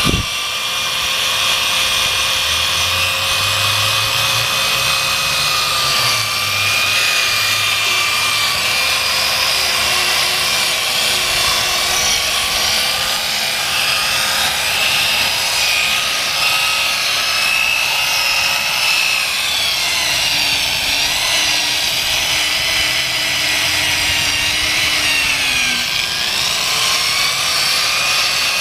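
Electric drill driving a headlight-restoration sanding disc against a plastic headlight lens: a steady motor whine with the scuff of the disc on the plastic. The pitch dips for several seconds past the middle as the motor is loaded, then comes back up.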